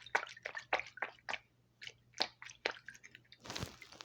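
Squishy fidget toy being squeezed and worked, giving a quick, irregular run of short wet squelching and dripping sounds that sound like pee. A brief louder rustle comes near the end.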